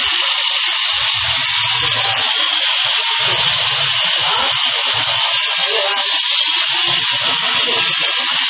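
Large remote-control helicopter hovering, its electric motor and spinning rotors making a steady high-pitched buzzing whine.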